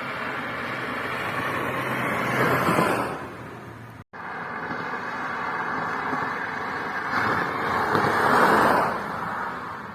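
Car passing by on a road, its engine and tyre noise swelling to a peak and fading. After a sudden brief dropout about four seconds in, a second pass swells and fades the same way.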